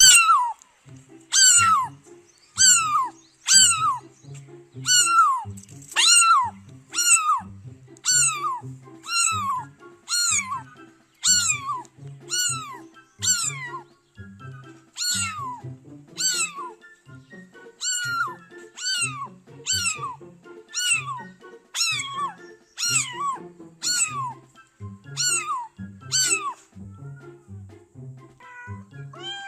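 Domestic cat meowing over and over, short meows each falling in pitch, about one a second, with the calls thinning out near the end.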